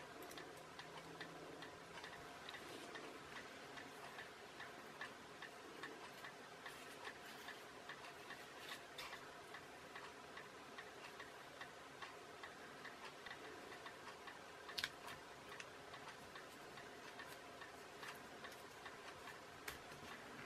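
Faint, regular clock-like ticking under quiet room tone, with a sharper click about fifteen seconds in.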